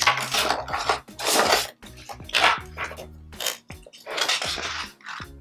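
Writing on paper by hand in short scratchy strokes, about one a second, with soft background music underneath.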